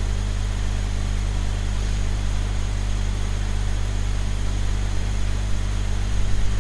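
A steady low hum with an even hiss above it.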